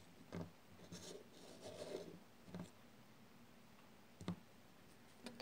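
Faint rubbing and scratching with a few light clicks from a small plastic Littlest Pet Shop dog figure being handled and turned over, with a sharper click about four seconds in.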